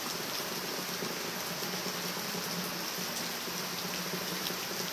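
Steady rain falling on garden foliage, an even hiss with scattered sharper drip ticks.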